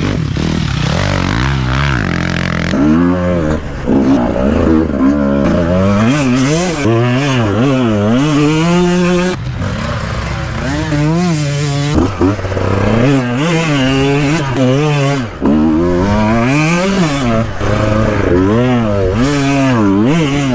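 Motocross dirt bike engine revving up and down again and again as it is ridden through corners, the revs climbing and dropping every second or two.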